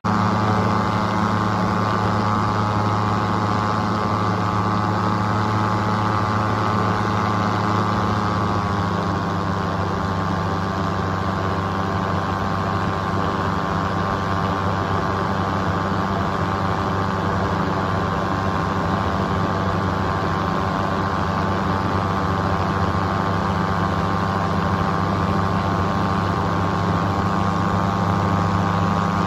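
Paramotor engine and propeller running steadily in flight, a constant droning engine note, with a slight change in pitch about eight seconds in.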